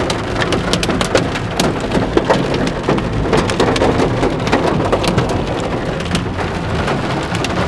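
Hailstones and rain pelting a car's roof and windscreen, heard from inside the cabin: a dense, irregular patter of sharp ticks over the low rumble of the moving car.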